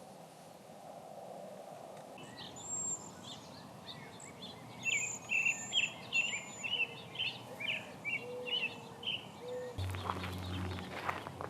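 A songbird singing a rapid run of varied, high chirping and warbling notes for several seconds. Near the end the background changes suddenly to a low steady hum with clicks.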